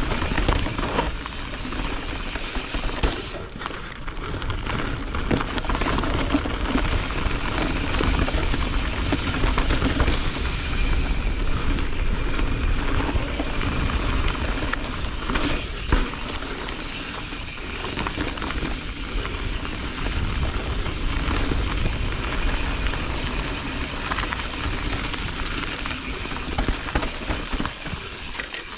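Canyon Strive enduro mountain bike running fast down a dirt forest trail, heard from a camera on the bike or rider: steady wind rush on the microphone mixed with tyres rolling over dirt, and the bike rattling, with a few sharp knocks over bumps.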